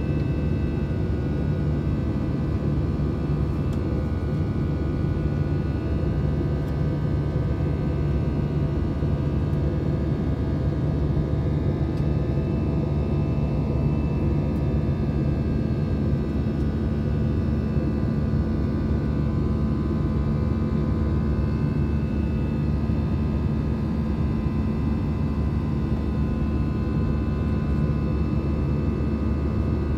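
Airliner cabin noise during the climb after takeoff: a steady roar of engines and airflow heard from inside the cabin, with faint steady whining tones above it.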